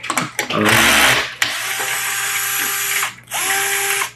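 Electric screwdriver backing screws out of the side of a printer fuser unit's plastic case. It runs in two spells, the first about a second and a half long and the second shorter near the end, which spins up with a short rising whine.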